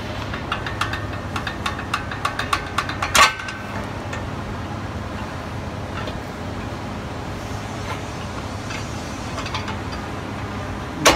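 Metal clinking and scraping as a steel pry bar levers a coiled brake-shoe return spring onto the shoes of an air-brake drum assembly. A sharp metallic clank comes about three seconds in and another near the end, over a steady low background hum.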